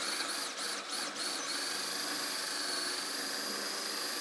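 Bosch cordless drill boring a large hole through a wooden panel with a wide cutting bit. Its motor speed dips again and again under load at first, then runs at a steady whine from about a second and a half in.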